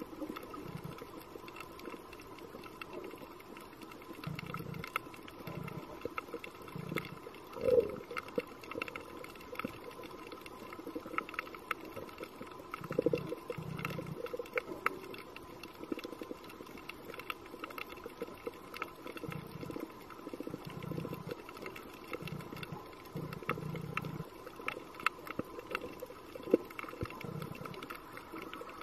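Underwater ambience picked up by a diving camera: a faint steady hum with many scattered crackling clicks and irregular short low rumbles.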